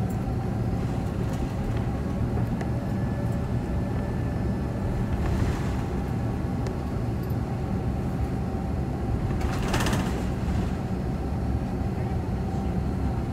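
Steady low rumble inside the cabin of an Airbus A330-200 as it taxis, its Pratt & Whitney PW4000 engines at idle. A brief hiss comes about five seconds in and a louder one about ten seconds in.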